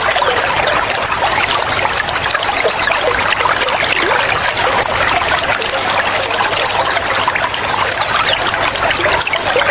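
Steadily running water with wild birds chirping over it, in several quick runs of short, high notes.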